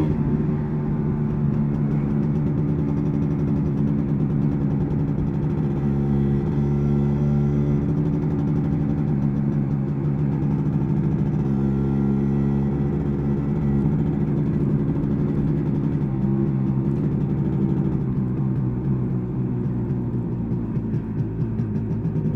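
1986 MZ ETZ 250's single-cylinder two-stroke engine heard from on board while riding. Its pitch drops at the start, then it runs at fairly steady revs, getting uneven near the end.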